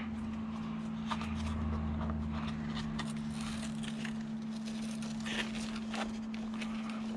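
Light handling noises, small scattered clicks, taps and rustles, as a LiPo battery and the canopy are test-fitted into an RC jet's fuselage, over a steady low hum.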